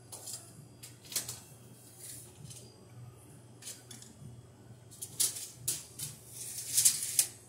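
Scattered sharp metallic clicks and scrapes of a screwdriver and wires being worked at a metal electrical outlet box, with a cluster of louder clicks in the last couple of seconds.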